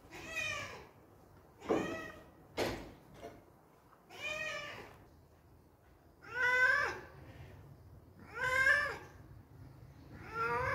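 Ginger tabby cat meowing repeatedly, about one meow every two seconds, six in all, the two in the middle loudest.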